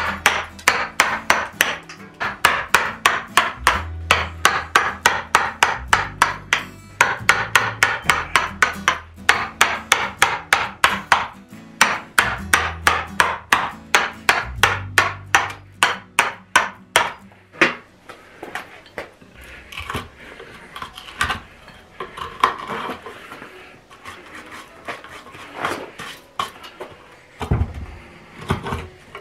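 Nylon carver's mallet striking a gouge to rough out the bowl of a wooden kuksa held in a vise: rapid, even blows, about four a second. At about eighteen seconds the blows stop and give way to quieter, scattered cuts and taps.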